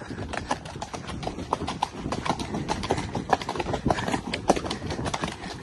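Hooves of ridden horses going fast along a dirt track, heard from the saddle as a rapid, uneven run of hoofbeats.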